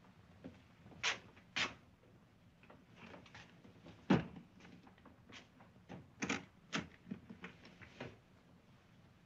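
A heavy suitcase being handled and opened: two sharp clicks about a second in, a heavy thump at about four seconds as it is set down, then a run of smaller clicks and knocks as it is worked open.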